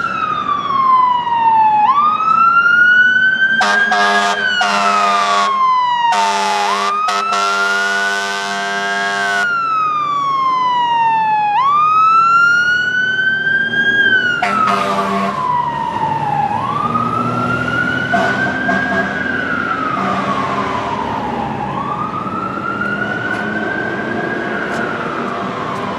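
Fire engine siren wailing, rising and falling in slow sweeps about every five seconds. A run of air horn blasts sounds over it from about 4 to 9 seconds in, with one more short blast about 15 seconds in.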